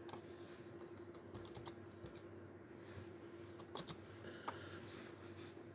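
A quiet room with a few faint, scattered clicks over a low steady hum.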